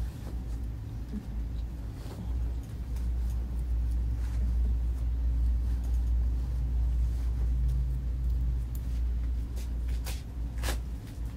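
A steady low rumble that swells through the middle, with two sharp clicks near the end as a metal clothes hanger is hooked onto a rail.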